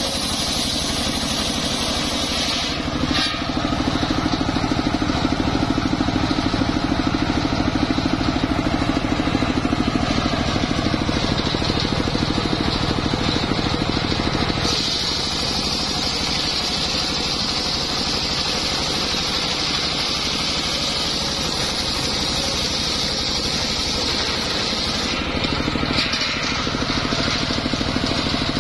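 Homemade engine-driven circular sawbench ripping a jowar (johar) log lengthwise: the engine runs steadily while the big blade cuts through the wood. The sound changes abruptly a few times, near 3 s, 15 s and 26 s.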